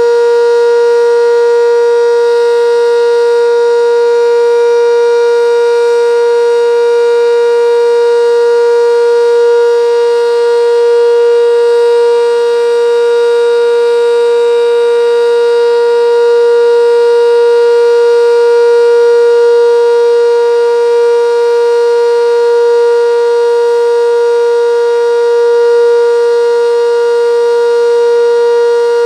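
Sentry 10V outdoor warning siren sounding its steady alert signal: one loud, unwavering tone with a rich stack of overtones and slight swells in loudness.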